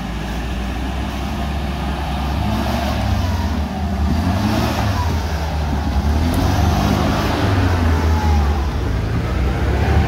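Off-road vehicle engine running under load, its revs rising and falling, getting slowly louder.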